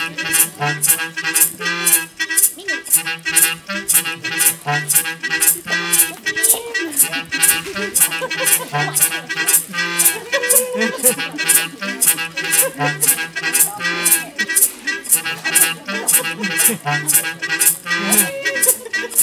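Music with a steady percussive beat, about two sharp strokes a second, over held tones and a repeating bass pattern.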